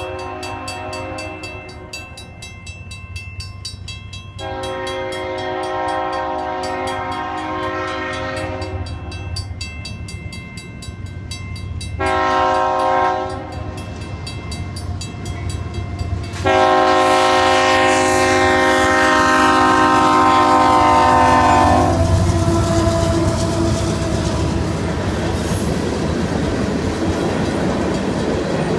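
Union Pacific diesel freight locomotive sounding its air horn for a grade crossing: the end of one blast, then a long blast, a short blast and a final long, loudest blast over the low rumble of the engine. After the last blast the train runs on through the crossing, with its engine rumbling and its wheels clacking on the rails.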